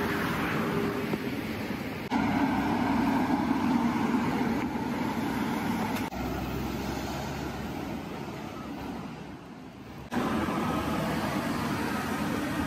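Street ambience with road traffic and a steady low hum, in short segments that change abruptly about every four seconds.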